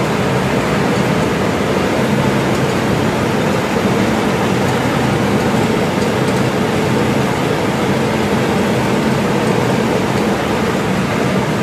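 Kaplan turbine test rig running: a steady, loud noise of the centrifugal pump and water rushing through the turbine, with a faint hum underneath.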